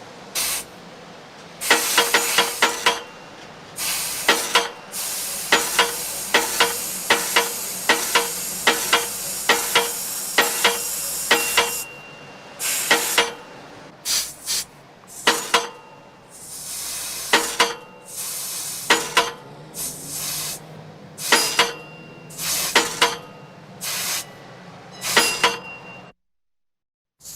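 Auto repair shop sounds: repeated bursts of compressed-air hissing from pneumatic tools, each about half a second to a second long, broken by short pauses and laced with sharp clicks and clinks. The sound cuts out completely for about a second near the end.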